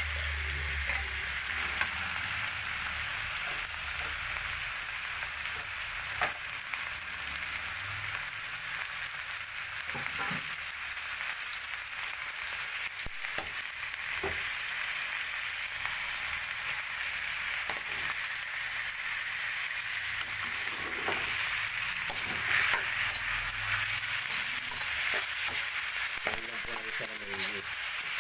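Cubes of raw pork frying in oil with onion and garlic in a metal wok: a steady sizzle. A metal spatula stirs them, scraping and knocking against the pan now and then.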